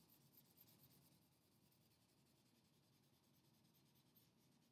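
Faint scratching of a marker coloring in on chart paper, dying away after about a second into near silence.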